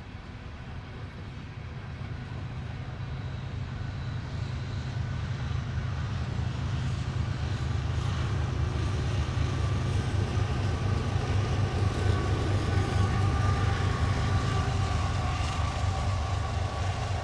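Norfolk Southern diesel-electric locomotives pushing at the rear of a coal train: a steady low engine drone, mixed with the rumble of the freight cars, that grows louder over the first dozen seconds as the locomotives come nearer.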